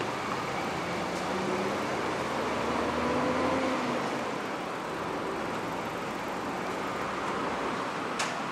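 Steady city traffic noise with a diesel city bus's engine pulling away, its note rising a little as it accelerates and loudest about three seconds in. A single sharp click near the end.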